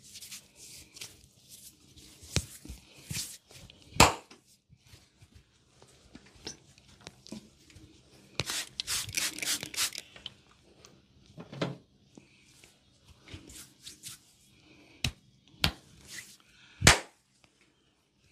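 Hands gripping, rubbing and slapping bare skin during a massage with arm stretching, with several sharp smacks, the loudest near the end. In the middle comes a quick run of hissing squirts from a trigger spray bottle.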